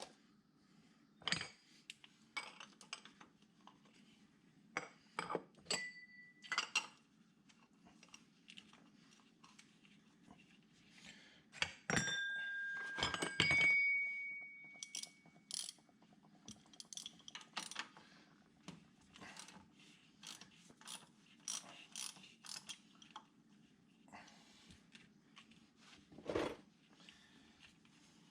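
Metal hand tools clicking and clinking while working at a tractor's oil filter, with a few clinks ringing briefly and runs of quick clicks. A low steady hum runs underneath.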